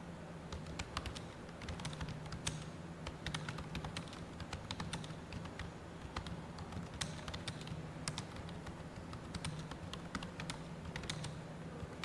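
Computer keyboard being typed on continuously: rapid, irregular key clicks, several a second, with short pauses between runs, over a steady low hum.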